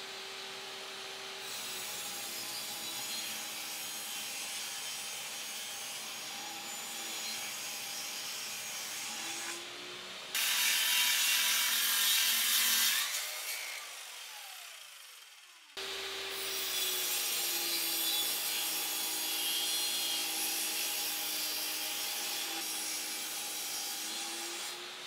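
Table saw running and ripping plywood sheets, its motor tone sagging and recovering as the blade takes the cut. About ten seconds in, a handheld circular saw cuts a board, louder, then winds down with a falling whine before the table saw is heard cutting again.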